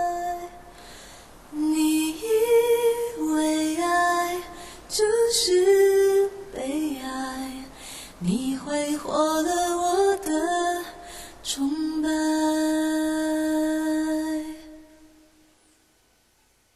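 A woman's voice sings the closing phrase of a slow Mandarin pop ballad, ending on a long held note about twelve seconds in that fades out a couple of seconds later.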